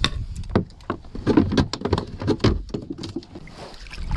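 Handling noise on a small boat: a quick, irregular run of taps and knocks, densest in the first two and a half seconds, as a caught fish and the fishing gear are handled.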